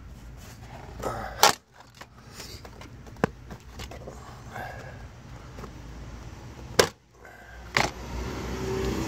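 Plastic interior trim being pried and pulled off by hand, with a few sharp clicks and knocks as snap clips let go and the pieces are handled.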